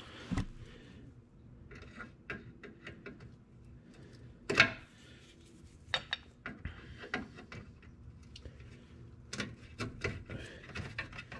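Scattered clicks and knocks of hands working a plastic fastener out of the underbody plastic panel by the oil filter and moving the panel, with one louder knock about halfway through.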